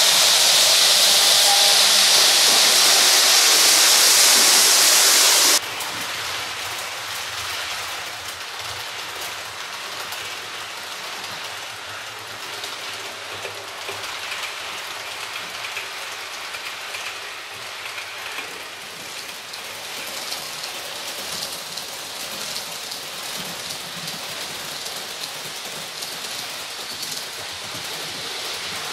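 A loud hiss for the first five and a half seconds that cuts off suddenly, then model trains running on a layout's track: a steady rattle of small wheels on rails.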